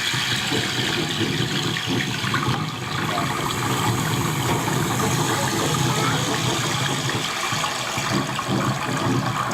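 Recorded water-pouring sound played back through a speaker with the 'loud' and 'high' effects applied, giving a steady, rain-like rushing hiss.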